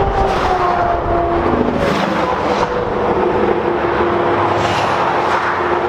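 Highway traffic passing close by: a steady rush of tyre and engine noise, with the pitch of a passing vehicle falling slowly over the first couple of seconds.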